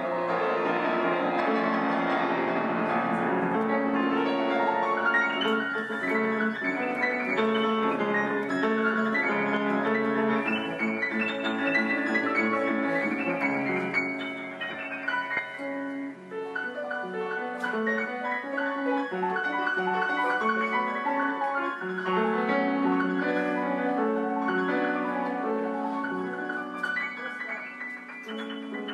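Grand piano played solo: a fast, flowing stream of many notes, with a brief dip in loudness about halfway through and again near the end.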